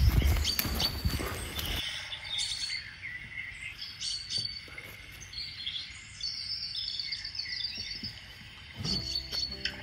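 Small songbirds chirping and singing in short, high phrases, repeated again and again. A muffled low rumble with knocks covers the first two seconds and comes back near the end.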